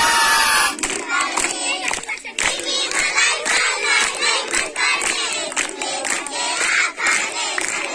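A group of children shout together in a cheer that ends about a second in, then clap their hands in a steady beat, a few claps a second, while young voices sing and call along.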